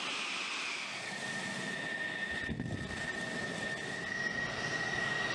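F-16 Fighting Falcon jet engine idling: a steady rush of engine noise with a high, steady whine that comes in about a second in.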